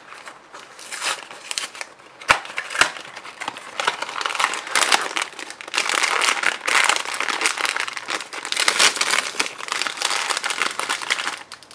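A cardboard blind box is opened with two sharp clicks. Then a printed foil bag crinkles loudly as it is opened by hand and a small vinyl figure is pulled out.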